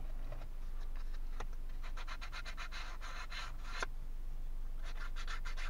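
Sandpaper rubbed quickly back and forth on the edge of a thin plywood kit piece, smoothing off where it was pressed out of the sheet. The rapid scratching comes in two spells, about two seconds in and again near the end.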